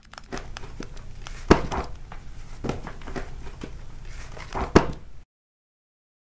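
Paper and book pages rustling and crinkling as a creature made of books shifts its flaps, with two sharp knocks, one about a second and a half in and one near the end. The sound cuts off abruptly at the end.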